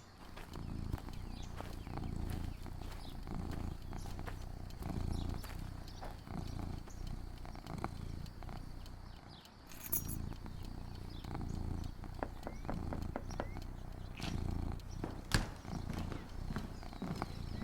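An animal purring close by, a low pulse that swells and fades about every second and a half, with scattered faint clicks.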